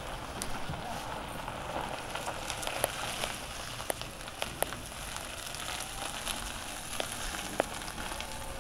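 Golf cart rolling slowly past on a paved lane: a crackling hiss with scattered sharp clicks.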